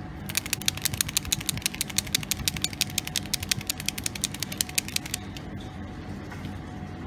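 Steel ball bearings rattling in a plastic microcentrifuge tube of leaf tissue and extraction buffer, shaken by hand to break up the plant sample. It makes a fast run of sharp clicks for about five seconds that stops abruptly.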